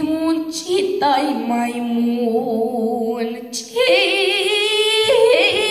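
A boy singing solo into a microphone, his voice amplified through the hall's loudspeakers, with a wavering vibrato on the long held notes.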